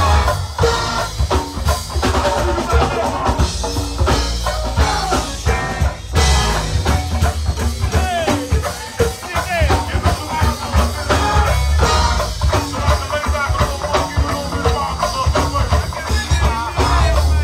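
Live go-go band playing: drum kit, congas and electric guitars driving a steady beat.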